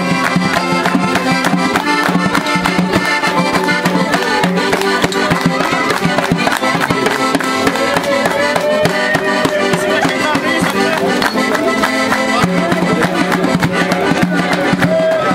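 Circassian dance music led by an accordion, with a sustained drone under a wavering melody, over a fast, steady beat of hand-clapping.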